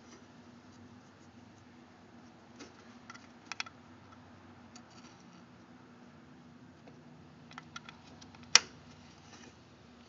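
Light clicks and scrapes of a SATA data cable's plastic connector being handled and fitted at a drive, with one sharp click about eight and a half seconds in, over a faint steady hum.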